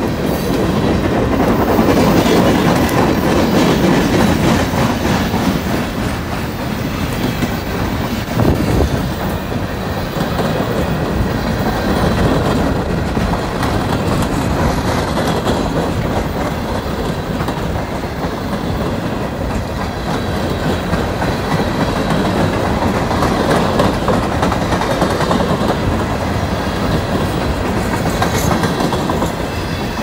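Empty open-top hopper cars of a short-line freight train rolling past close by, a steady loud rolling noise with the wheels clicking over rail joints. A single sharper knock about eight and a half seconds in.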